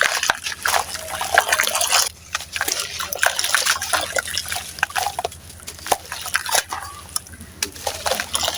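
Dry red sand-cement crumbling into water: dense, irregular gritty crackling with dripping and sloshing.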